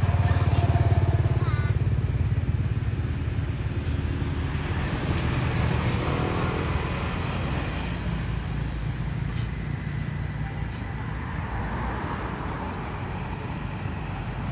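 Low, steady engine rumble of road traffic, a motor vehicle passing, loudest in the first couple of seconds and then slowly fading.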